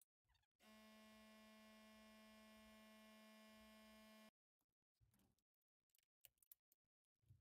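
Near silence, with a faint steady electrical buzz for a few seconds that starts and stops abruptly.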